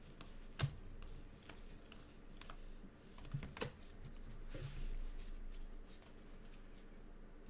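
Sparse light clicks and taps of gloved hands working at a desk, with a short soft rustle about five seconds in.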